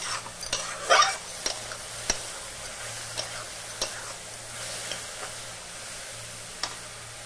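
Sliced mushrooms frying in oil in a metal kadhai, sizzling steadily, while a metal spatula stirs them and scrapes and clacks against the pan, with a cluster of scrapes about a second in and single clacks after.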